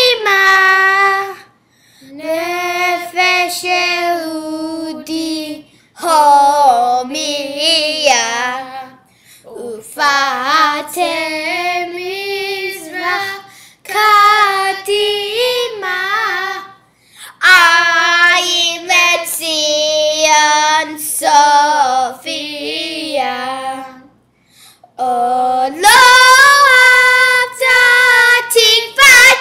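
A child singing a song solo, high-voiced, in sung phrases broken by short pauses, with no instruments standing out.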